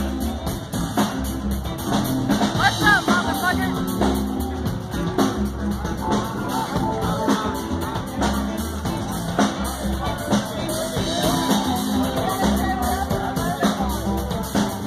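Live acoustic band playing: strummed and picked acoustic guitars over an upright bass and a drum kit keeping a steady beat.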